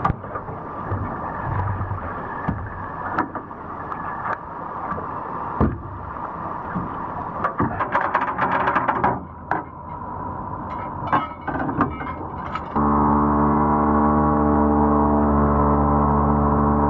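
Metal anchor chain rattling and clinking as it is hauled aboard an aluminium boat, over a low running hum. Then, about two thirds of the way in, a small 5 hp outboard motor running steadily at cruising speed, one even, unchanging drone.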